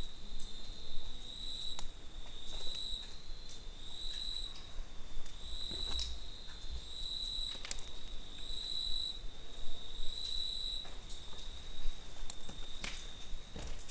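Steady high-pitched insect trill, cricket-like, that swells in regular pulses about every second and a half. Scattered sharp clicks sound over it.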